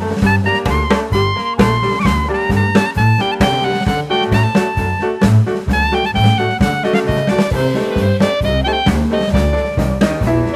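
Background jazz music with saxophone or brass melody over a steady bass and drum beat.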